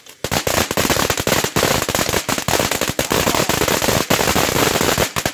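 Fireworks crackling: a rapid, dense run of sharp cracks and pops, stopping suddenly near the end.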